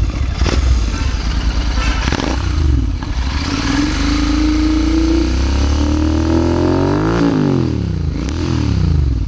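Royal Enfield Continental GT650's 648 cc parallel-twin engine revving through an aftermarket Red Rooster performance exhaust, with a BMC air filter fitted. There are two short throttle blips, then a long climb in revs that peaks about seven seconds in and drops away, then one more short blip.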